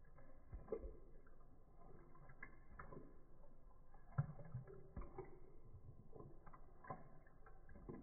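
Corgi puppy lapping milk from a ceramic bowl, heard in slow motion: faint, irregular clicks and creaks, with one louder knock about four seconds in.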